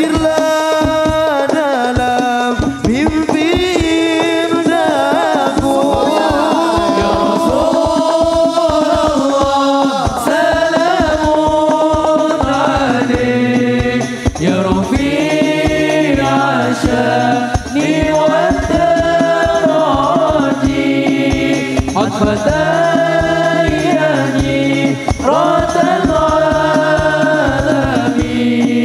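A man singing an Islamic devotional song (sholawat) into a microphone, in a chant-like melody, over steady hand-drum percussion.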